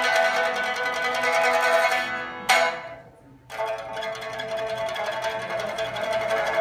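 Solo pipa playing: fast tremolo plucking on sustained notes, then one sharp plucked note about two and a half seconds in that dies away into a brief pause, before the playing starts again.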